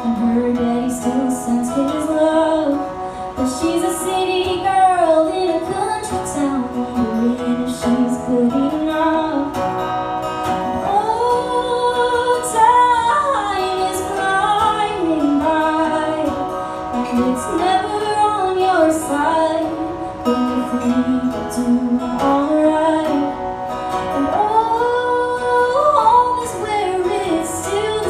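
A song with a female voice singing over acoustic guitar, laid on as background music.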